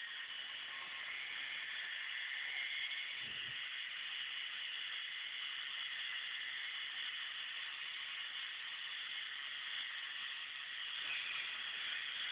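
K'nex roller coaster's motor-driven lift chain running, a steady whirring hiss.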